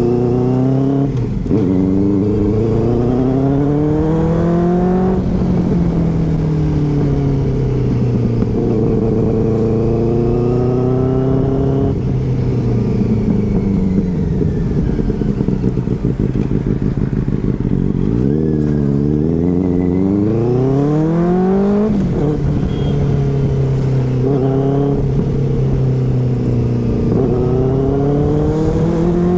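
Sport motorcycle engine pulling through the gears: the note climbs and drops back with each upshift a few times, eases off and picks up again part-way through.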